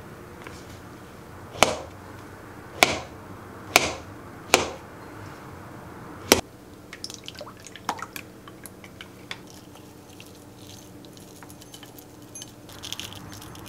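Chef's knife cutting through a peeled avocado and knocking down onto a plastic cutting board: five sharp knocks over about five seconds, then lighter scattered clicks. Near the end, a soft rustle of a metal spoon scooping muesli into a wooden bowl.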